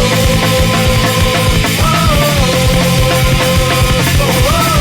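Loud punk rock goal song: driving drums and bass under a held melody note that bends in pitch about two seconds in and again near the end.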